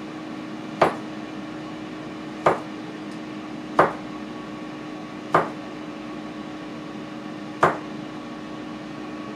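Chef's knife cutting through plantain into a plastic cutting board, five sharp knocks at uneven intervals, over a steady hum.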